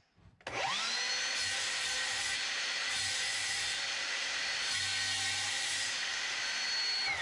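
Bosch GCM 18V-216 cordless brushless sliding mitre saw spinning up with a rising whine about half a second in, then running steadily as it cuts through wood, and winding down with a falling whine at the very end.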